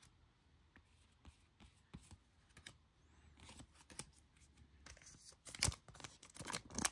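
Faint handling of baseball trading cards and their plastic pack wrapper: light clicks, taps and rustles, sparse at first and busier in the last few seconds.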